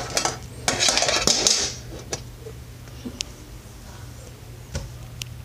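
Handling noise close to the microphone: rustling and clatter in the first second and a half, then a few light clicks, over a low steady hum.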